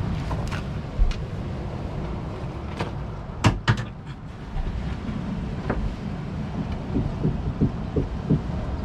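Wind buffeting the microphone in a steady low rumble, with scattered sharp clicks and knocks as a gill net is handled on a boat deck, and a run of quick ticks near the end.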